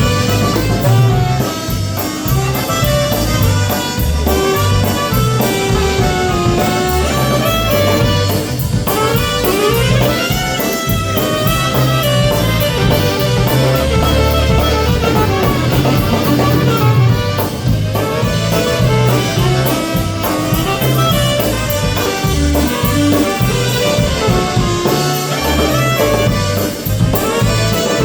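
Live band playing an instrumental break between sung verses: saxophone and brass carry the melody over a steady bass line and drum kit.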